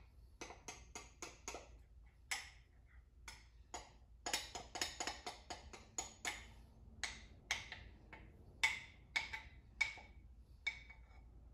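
Irregular sharp clicks and light taps of utensils against glassware, a few a second, while a thick peanut butter and honey mixture is poured from a glass measuring cup into a glass bowl of oats.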